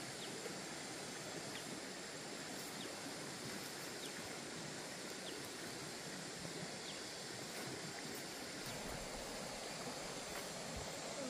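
Steady rushing noise of a stream running, with faint short high chirps repeating about every second and a half.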